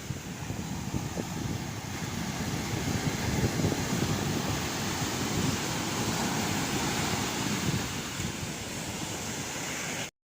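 Fast-flowing river water rushing steadily over rocks, with wind buffeting the microphone. The sound cuts off abruptly about ten seconds in.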